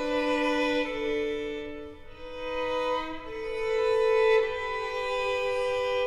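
Background music of bowed strings led by a violin, playing slow held notes in two voices that change about every second.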